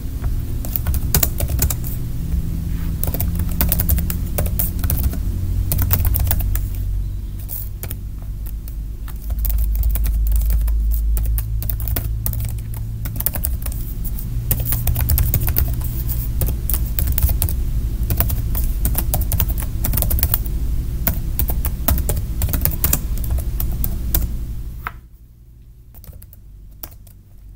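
Typing on a computer keyboard: a fast, irregular run of key clicks as shell commands are entered, over a low rumble. The clicks and rumble drop away sharply near the end, leaving a few faint keystrokes.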